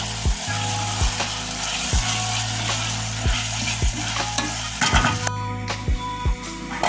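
Wooden spoon stirring broad beans through a sizzling tomato and onion curry base in a stainless steel pot, with a scrape at each stroke. Near the end the pot's metal lid is handled with a few clinks.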